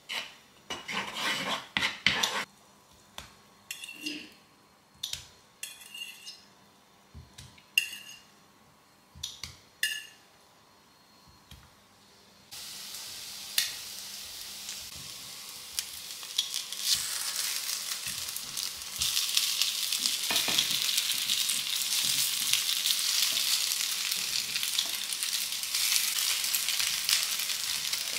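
A wooden spatula scraping melting butter around a nonstick skillet, then a series of short knocks. From about halfway on, egg-soaked baguette slices fry in the butter: a steady sizzle that gets louder twice.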